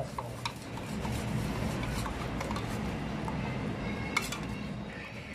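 A spoon stirring and clinking against the inside of a steel mug, mixing arrowroot powder into cold milk to make a slurry for thickening. It goes as scattered light clicks, one sharper near the four-second mark, over a steady low hum.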